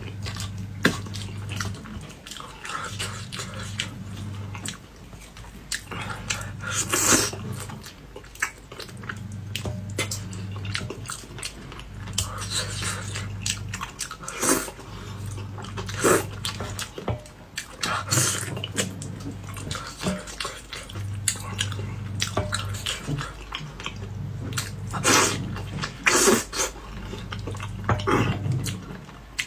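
Close-up wet eating sounds of spicy braised fish: irregular lip smacks, slurps and sucking as pieces in sauce are drawn off chopsticks and chewed, with a few louder slurps. A low hum underneath switches on and off every second or two.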